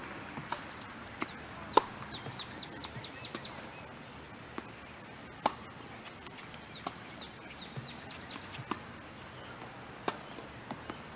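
Tennis ball being struck and bouncing: sharp single knocks a few seconds apart, the loudest about two seconds in. Twice a bird calls a quick run of short high chirps, each run lasting about a second.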